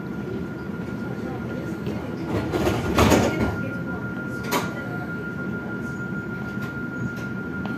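Citadis Dualis tram-train standing at a station platform: a steady high tone sounds throughout over a low rumble, a loud rush of noise comes about three seconds in, and a sharp click follows about a second and a half later.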